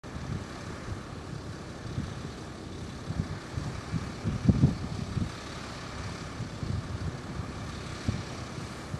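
Steady distant jet rumble of a Boeing 737-200's JT8D turbofan engines on final approach. Irregular low buffeting runs through it, strongest about halfway, from wind on the microphone.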